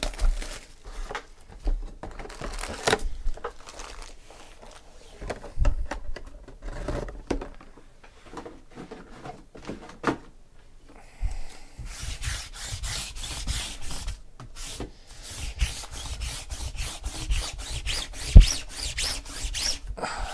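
Cardboard trading-card box and foil-wrapped card packs being handled: rubbing, scraping and crinkling with scattered taps. About halfway through it becomes a dense run of rustling strokes, with one sharp knock near the end.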